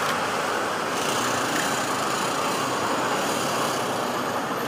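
Steady road traffic noise, an even wash of passing vehicles with no single event standing out.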